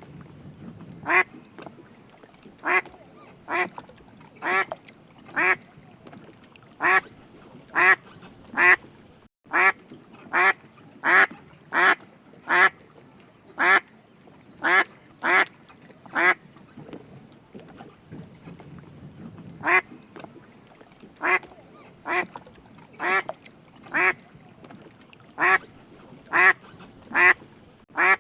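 A duck quacking over and over: short single quacks spaced about a second apart, pausing for a couple of seconds midway before resuming.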